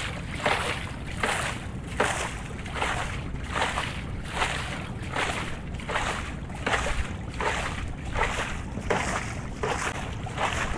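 Water splashing and sloshing at a river fishing boat in quick, even surges, about two a second, over a low steady rumble.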